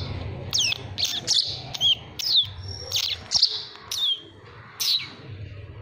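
A young house sparrow chirping repeatedly: about nine short, high chirps, each falling in pitch, in an uneven run that stops about five seconds in.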